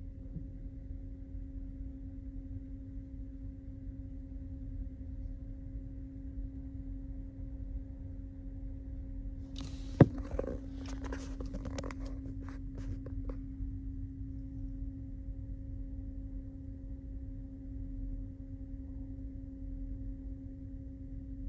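Steady low drone of a ferry's engines and machinery, with a constant hum. About halfway through comes one sharp knock, followed by a few seconds of rustling and crackling.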